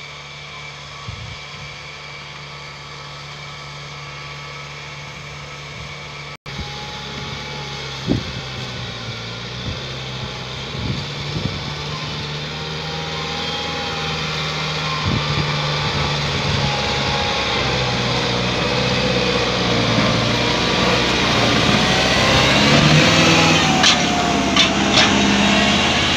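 Kubota MU5501 tractor's four-cylinder diesel engine running steadily while pulling a trolley loaded with sugarcane, growing louder as it draws near. The engine note shifts a little near the end.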